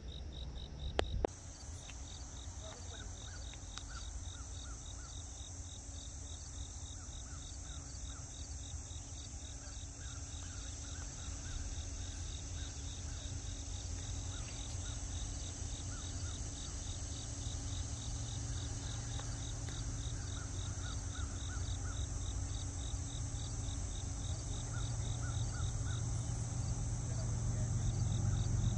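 Crickets and other insects chirping steadily in a fast, even pulse, with a high insect hiss behind them. A low rumble grows gradually louder over the second half.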